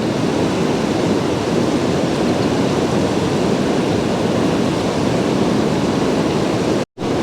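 Steady rushing of river water, an even noise with no breaks until a brief dropout just before the end.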